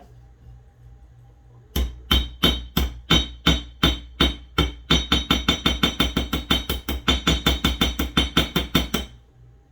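Ball-peen hammer tapping thin sheet brass around its edge to stretch it into a curved end cap: sharp, ringing metallic taps. They start about two seconds in at about three a second, quicken to about five a second, and stop about a second before the end.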